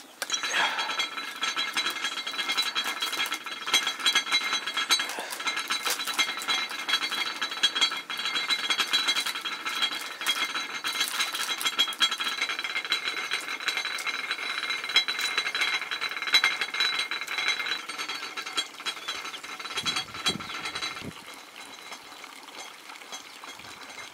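A rapid metallic rattle with a steady high whine. It starts suddenly and stops about 21 seconds in.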